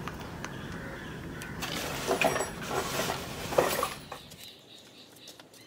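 Rustling and sharp clicks from a pliers-type tool and a plastic connector being worked on the end of a solar panel cable, loudest around two and three and a half seconds in, over steady low background noise that drops away near the end.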